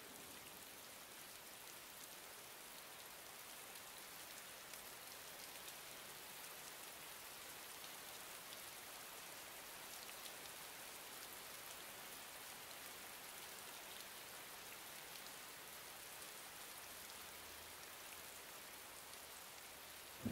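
Faint, steady rain: an even hiss with light scattered patter.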